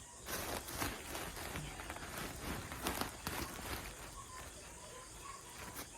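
Irregular scraping and rustling of dry chicken manure being worked with a shovel, in short strokes.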